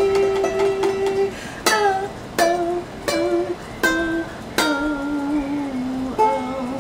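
Ukulele strummed in single chords about every three quarters of a second, with a voice holding long wordless notes over it.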